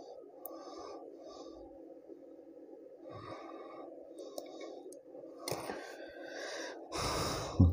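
Small fan of a homemade hot air gun blowing steadily, a faint even whir, with louder bursts of rushing noise about five and a half seconds in and again near the end.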